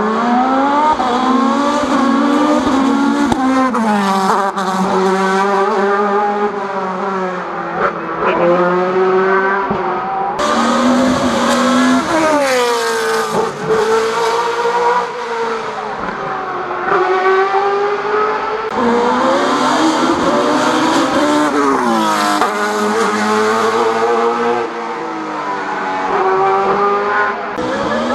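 Rally car engine revving hard up the hill climb course, its pitch rising and dropping again and again as the driver shifts gears and lifts for corners.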